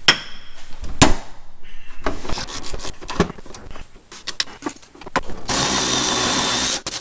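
Hand tools on a bolt in an engine bay: two sharp metal clacks, one at the start and the loudest about a second in, then a run of ratchet clicks. Near the end a cordless ratchet runs steadily for about a second and a half, spinning the bolt.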